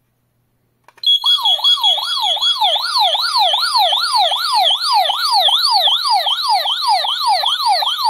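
Wireless smart home alarm system sounding its emergency siren after its SOS alarm is triggered. A fast wailing sweep, about two and a half rises a second, starts about a second in, with a steady high beep alongside it for the first second and a half.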